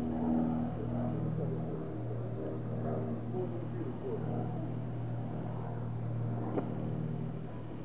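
A light propeller aircraft's piston engine drones steadily overhead as a low, even hum. A faint voice is heard over it.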